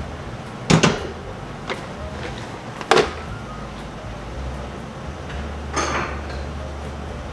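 Kitchen handling knocks: a stainless steel pot set down on a gas stove's cast grate and a cabinet door opened, three sharp knocks in all, the loudest about three seconds in with a short ring, then a softer clatter with a brief high clink of dishware near the end.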